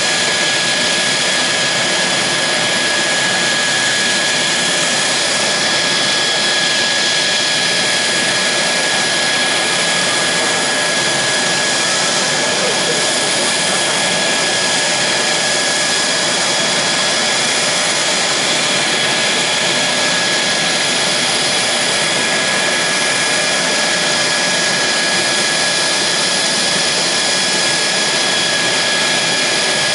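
Mitsubishi F-2's single F110 turbofan running steadily at ground idle during an engine run-up: an even, loud rush with a steady high-pitched whine over it, unchanging throughout.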